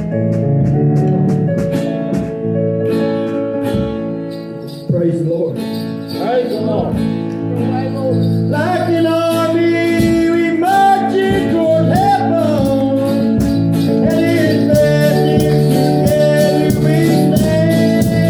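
A man strumming an acoustic guitar, his singing joining the chords partway through.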